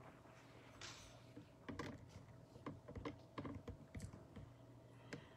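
Faint scattered clicks and light knocks in a quiet room, over a faint steady hum.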